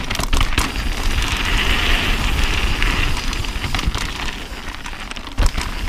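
Mountain bike riding down a dry dirt trail, heard from a camera on the handlebars: a steady rush of wind and tyre noise, with the bike knocking over bumps a few times.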